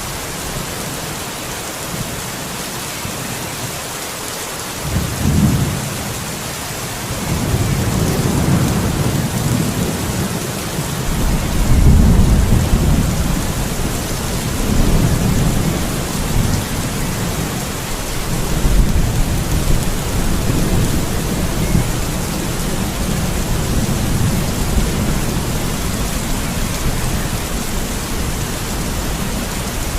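Thunderstorm: steady heavy rain hissing, with thunder breaking in about five seconds in and rolling on in long low rumbles, loudest a few seconds after it starts.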